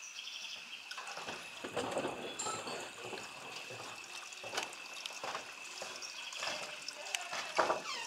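A steady, high-pitched insect drone with irregular bursts of water sloshing and trickling over it, the loudest a little after a second in and near the end.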